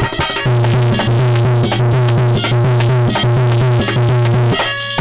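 Instrumental interlude of Indian devotional music: a harmonium melody over a held low note, with a steady dholak rhythm. The music swells about half a second in.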